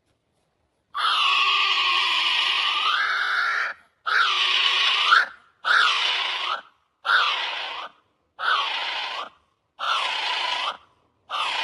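Kiwi calling: one long harsh call of about three seconds, then a run of about seven shorter calls of roughly a second each, each dipping and rising in pitch.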